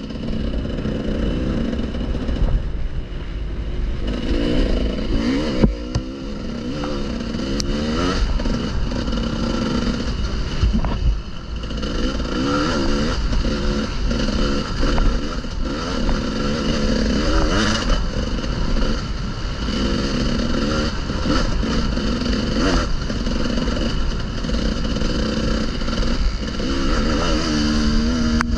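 Enduro motorcycle engine running on a trail ride, revving up and falling back again and again as the throttle opens and closes, with a few sharp knocks along the way.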